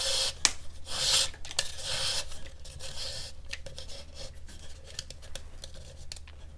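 Leather lace being pulled through the holes and along the braid on a dried gourd's rim: a few rubbing swishes in the first three seconds, fainter after, with small clicks.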